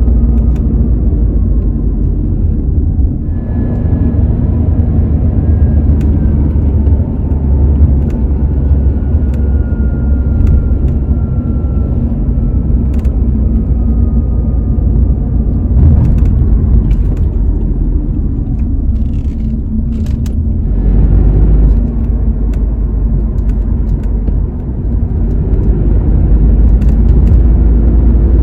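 Tata Nexon cabin noise while driving slowly: a steady low rumble of road and engine, with scattered short clicks and knocks every few seconds from the rear left door. This is the intermittent 'khat khat' rattle that comes on turning or over rough road, which the owner says he cannot trace to any loose part.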